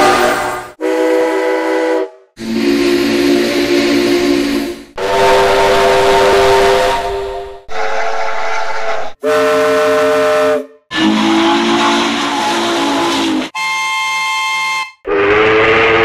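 A run of about eight separate steam train whistle blasts, each a different chord of several steady tones over a hiss. They follow one another with sudden starts and stops and short gaps between them; one blast near the end is higher-pitched than the rest.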